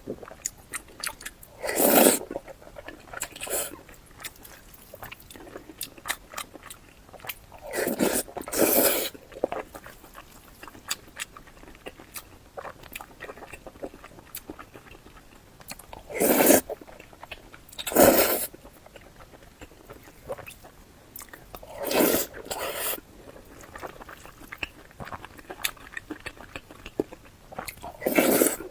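Close-miked eating sounds: a person biting and chewing food, with small chewing clicks throughout and about nine louder bites or mouthfuls at irregular intervals.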